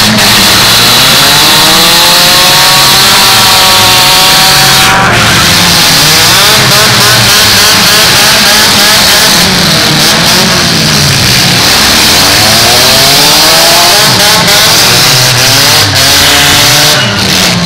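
Loud engines of several compact demolition-derby cars revving at once, their pitches repeatedly rising and falling as the cars accelerate and back up. A couple of sharp knocks stand out, one about five seconds in and more near the end.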